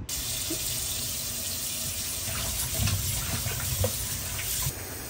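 Kitchen tap running into a sink while loquats are washed under it. The steady flow carries a few light knocks of fruit and hands in the water, and drops a little in level near the end.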